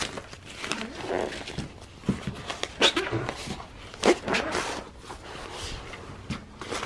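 Rustling and crinkling of a fleece pet-bed cover and the vinyl pad of a K&H heated pet mat being handled and slid together, with a few sharp irregular knocks or scrapes, the loudest about three and four seconds in.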